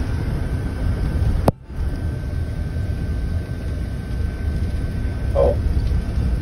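Steady low rumble of road, engine and wind noise from inside a moving tour vehicle, with a faint steady high tone running through it. About a second and a half in there is a sharp click and the sound drops out for a moment.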